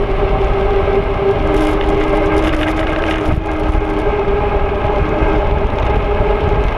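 Wind rushing over a road bike's handlebar-mounted action camera while riding on pavement: a loud, steady rumble with droning tones above it. A second, slightly lower tone joins about a second and a half in and drops out near the end.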